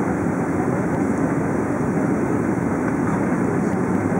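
Steady roar of a Boeing 777's jet engines and airflow heard inside the passenger cabin, a dense, even low rumble with no sudden changes.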